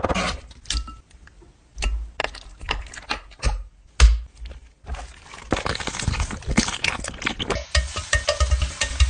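A chef's knife chopping pickles on a wooden cutting board in quick strokes, then a spoon stirring and clinking a thick sauce in a glass bowl. Dense crackling follows as salami slices go into a hot frying pan.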